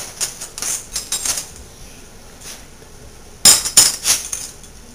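Metal silverware clinking against other utensils as pieces are handled and put into a cutlery drawer: a few light clinks in the first second and a half, then a loud cluster of clinks about three and a half seconds in.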